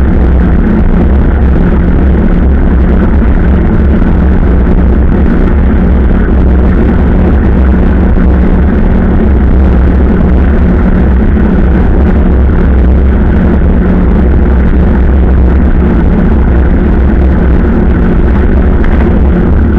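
Loud, steady rumble of wind buffeting the microphone of a camera on a moving bicycle, with road noise beneath it and no breaks.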